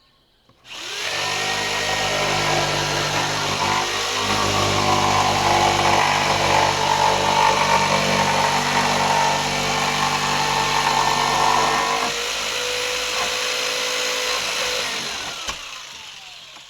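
Electric power saw cutting through the wall framing: the motor starts about a second in and runs loaded through the cut. About twelve seconds in the cutting noise drops away, leaving the motor running free, and it then winds down near the end.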